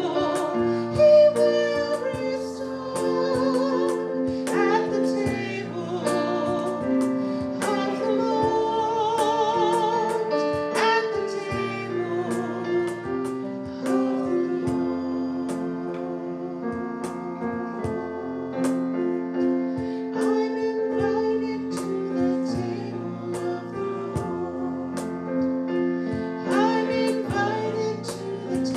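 A woman singing a slow song with piano accompaniment, holding long notes with vibrato.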